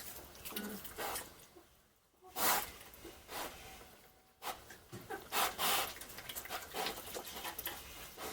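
A pig eating slop, munching in irregular wet bursts, with short pauses about two seconds and about four seconds in.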